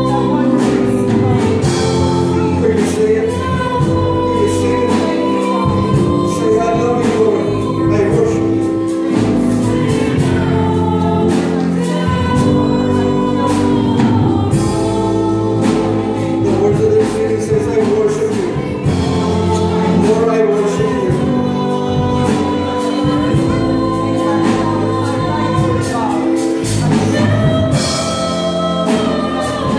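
Live church worship band playing a gospel song: singing over electric guitar, acoustic guitar and keyboard, with a steady beat.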